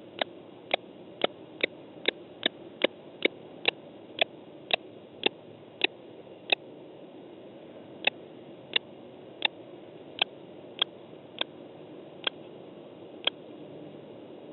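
Sharp, brief ticks from a common kestrel on the stone ledge of its nest hole, as it taps and pecks at the floor: about two a second at first, then a pause, then sparser ticks.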